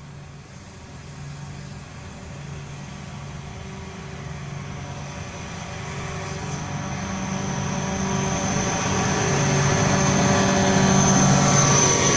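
A locomotive-hauled train of hopper wagons approaching and growing steadily louder: a steady low engine drone with rail and wheel noise, and a thin high whine that strengthens near the end as the wagons come alongside.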